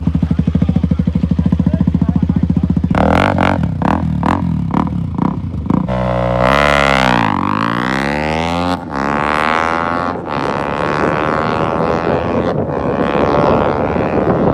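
Racing motorcycle engine at full throttle on a drag run. It holds a high, pulsing pitch, then has a string of quick breaks as it shifts up, then makes a fast, loud pass about six seconds in and keeps running hard.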